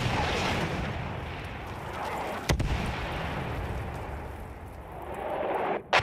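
Battle sound effect of artillery and explosions: a continuous heavy din of noise, with sharp blasts about two and a half seconds in and again near the end.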